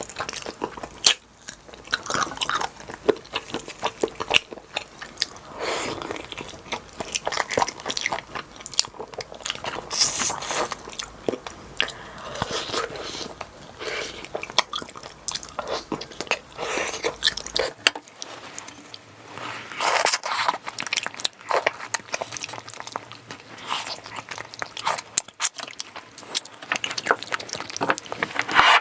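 Close-miked chewing and biting while eating pork back-bone stew, with many sharp, irregular mouth clicks and wet chewing noises.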